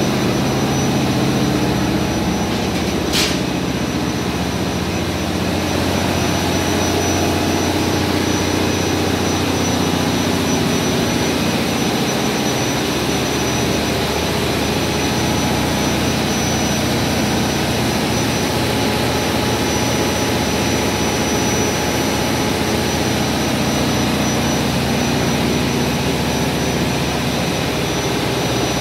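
Steady loud drone of running diesel machinery in a ship's engine room, with a thin high whine held throughout. A short click sounds about three seconds in.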